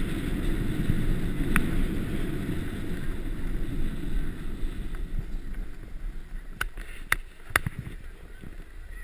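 Snowboard sliding over packed snow with wind buffeting the GoPro's microphone: a steady low rush that dies away in the second half as the rider slows. A sharp click comes about a second and a half in, and three more come close together near the end.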